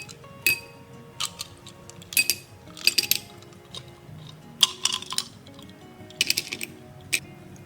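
Clusters of sharp metallic clinks and rattles, like kitchen utensils knocking on a pot or bowl, about seven times, over soft background music.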